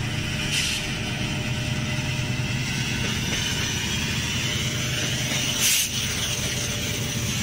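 BNSF diesel freight locomotives approaching: a steady low engine drone under a constant rush of noise. About five and a half seconds in there is a brief, louder burst of hissing.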